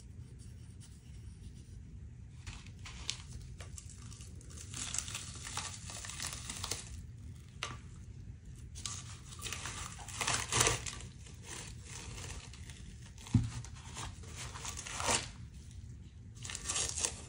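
Taped layers of a homemade UHMWPE and aluminium armour plate being peeled apart by gloved hands: uneven tearing and crinkling of tape and torn plastic sheet. There is a single sharp knock about 13 seconds in.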